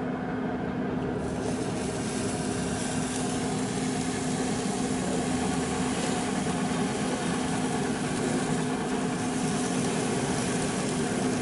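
Camp Chef Pursuit pellet grill running at 375°F: its fan gives a steady mechanical hum with a constant drone.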